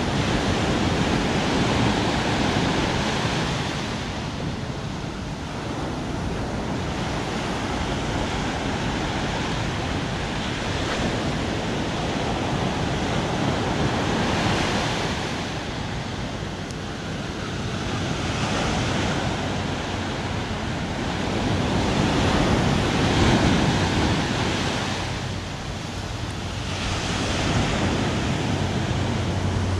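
Sea surf: waves washing onto the shore, the rush swelling and fading every few seconds, with wind on the microphone.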